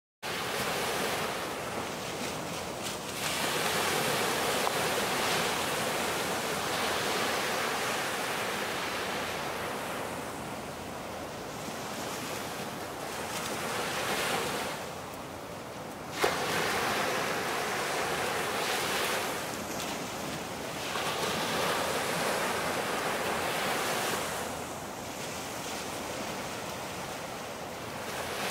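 Small surf washing onto a sandy beach, the rush swelling and falling back every few seconds. A single sharp click a little past halfway.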